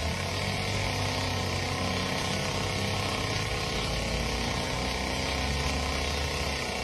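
An engine running steadily at idle, a low even hum with a hissing background.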